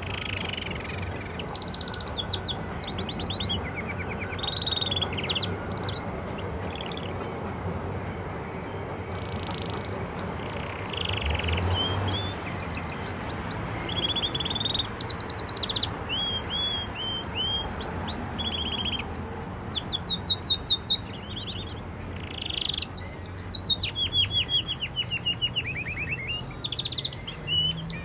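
Caged canary singing in long phrases of chirps and rapid trills, with the fastest trill runs loudest in the second half, over a steady low background hum.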